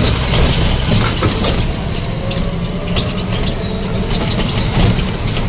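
Busy market street traffic noise: motorcycle and scooter engines running at idle, with scattered small clicks and knocks over a steady low rumble.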